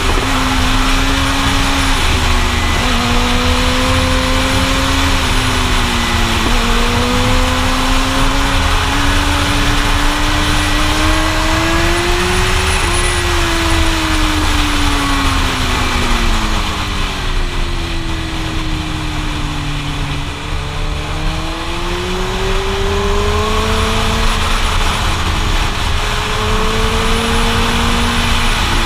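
Suzuki GSX-R1000 sport bike's inline-four engine heard from the rider's position, its pitch rising and falling as the throttle is worked through the bends, over a steady rush of wind on the microphone. A little past halfway the engine eases off and drops in pitch, then climbs again near the end.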